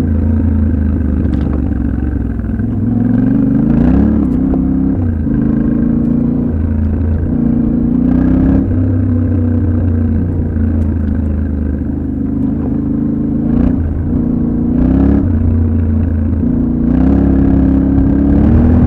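Yamaha Ténéré 700's 689 cc parallel-twin engine running while being ridden off-road, the revs rising and falling several times with short throttle openings.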